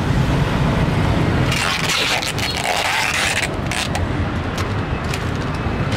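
Busy market-street ambience: motor traffic running past with a steady low rumble, mixed with scraping, a few sharp clicks and faint voices.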